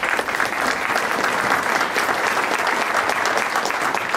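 Audience applause: many people clapping together, starting abruptly and holding steady.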